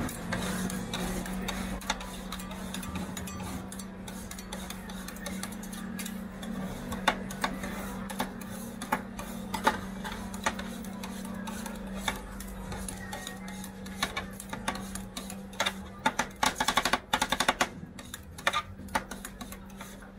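Metal spatulas scraping and tapping on the steel cold plate of a rolled-ice-cream pan as the setting ice cream base is chopped and mixed. There are scattered clicks at first, then a fast run of chopping taps near the end, over a steady low hum.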